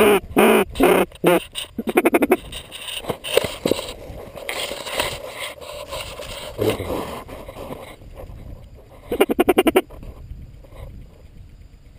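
Ducks quacking in rapid runs: a loud burst of quick quacks at the start and another fast string of about ten quacks about nine seconds in, with softer scattered calls between.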